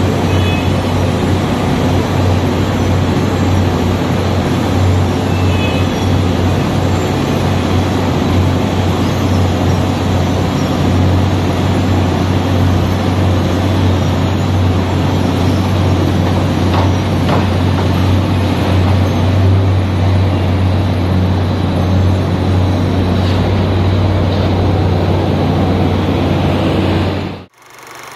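Wirtgen W 150 CF cold milling machine working, its diesel engine's steady low drone under load mixed with the dense grinding of the cutting drum milling asphalt. The sound cuts off abruptly near the end.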